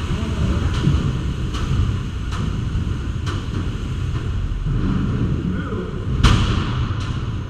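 Combat robots banging inside an enclosed arena: four sharp knocks about a second apart, then a much louder crash about six seconds in, over a steady low rumble.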